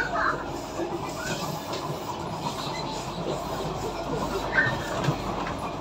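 Kawasaki Sifang C151A metro train heard from inside the car while it runs along the track: a steady rumble and hiss of the moving carriage. A few brief high-pitched sounds come just after the start and about four and a half seconds in.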